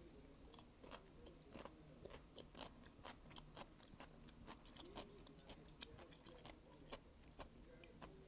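A person chewing and biting malatang close to the microphone: a run of small crunches and clicks, about two or three a second, the sharpest just after half a second in.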